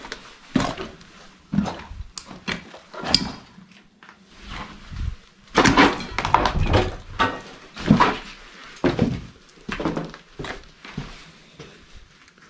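Footsteps crunching over rubble and debris in a small, echoing room, with scattered knocks and thuds at irregular intervals. The thickest stretch of crunching comes around the middle.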